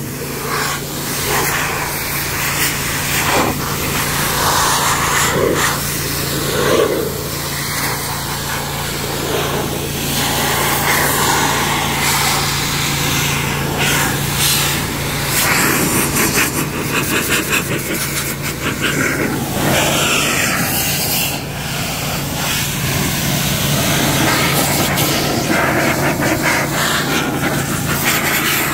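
Handheld car-drying blower running steadily: a loud rush of air over a constant motor hum as it blows water off the paint.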